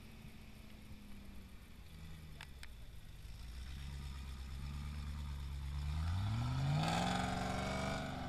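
Land Rover Discovery V8 engine labouring up a steep, slippery dirt-and-rock climb: a steady low note at first, then revving up sharply about six seconds in and holding high revs, loudest near the end.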